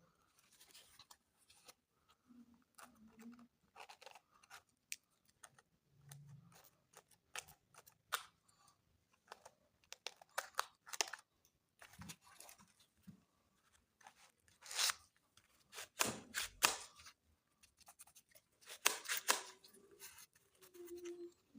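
Cardboard being handled and worked by hand: irregular clicks, scrapes and crackling rustles, with the loudest crackles about fifteen, sixteen to seventeen and nineteen seconds in.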